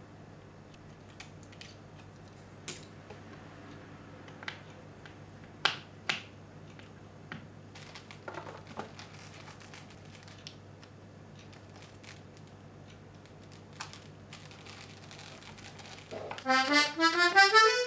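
Toy button accordion, newly fitted with reeds taken from a C/G diatonic accordion, played for the first time: a quick run of rising notes near the end, loud and clear, showing the transplanted reeds sound. Before that, scattered clicks and taps as the accordion's case is handled and closed up.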